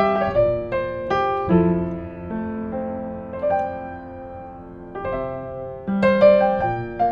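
1960s upright piano played slowly: several chords and melody notes struck in the first two seconds, a chord left to ring and fade through the middle, then new notes struck again about five seconds in.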